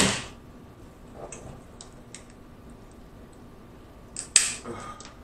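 King crab leg shell being cracked and picked apart close to the microphone: a loud sudden crack at the start, another about four seconds in, and small clicks between.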